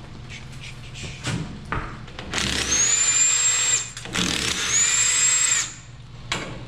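Handheld power tool run twice, each run about a second and a half, its motor whine rising as it spins up and dropping as it stops, after a few light metal knocks.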